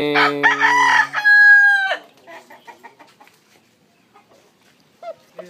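Rooster crowing once, a loud call of about two seconds ending in a long held note that drops away at the end.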